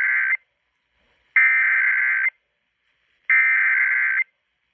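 Emergency alert attention tone: loud, buzzy beeps about a second long, repeating about every two seconds, three in all. It announces a wildfire evacuation order.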